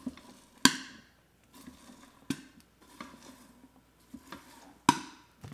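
Popcorn kernels popping one at a time in the Ninja Foodi's covered inner pot, a few sharp pops a second or more apart, with a light rustle of popped corn and a spatula in the pot. The popping has slowed to its last few kernels: the batch is nearly done.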